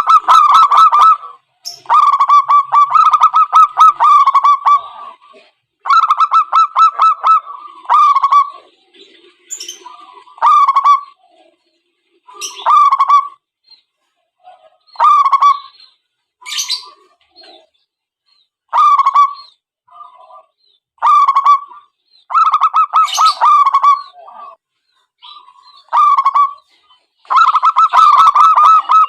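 Zebra doves cooing: repeated bouts of rapid, staccato pulsed coos, each lasting one to two seconds with short gaps between.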